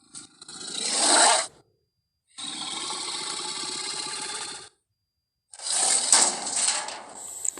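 Three Carnotaurus creature vocalisation sound effects: a call that rises in loudness and cuts off, then a steady raspy growl of about two seconds, then another loud call.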